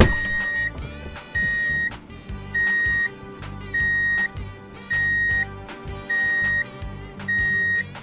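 Repeated electronic beep: seven steady high-pitched tones, each about half a second long, roughly one a second, over background music.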